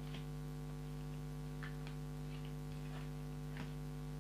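Steady electrical hum, with a few faint soft clicks scattered through it.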